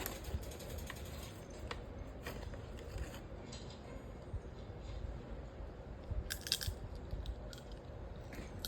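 Someone chewing and crunching microwave popcorn, with scattered crunches and a brief louder cluster of them about six and a half seconds in.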